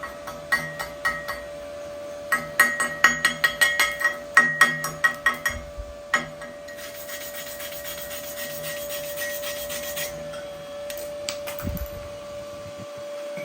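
A chipping hammer strikes slag off a stick-weld bead on steel plate in quick runs of ringing blows. After about seven seconds come a few seconds of scratchy brushing, typical of a wire brush cleaning the weld, then a few scattered taps.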